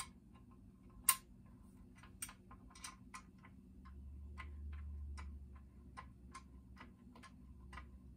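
Sharp metal clicks about twice a second as an L-shaped hex key is turned and reset in a lower-unit bolt of an outboard motor being backed out by hand. A low hum swells up in the middle and fades.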